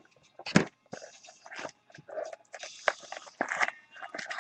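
Irregular handling noise from trading cards and their cardboard and plastic packaging: scratchy rustles and crinkles with sharp clicks, one sharp click about half a second in and a busier stretch of crinkling past the middle.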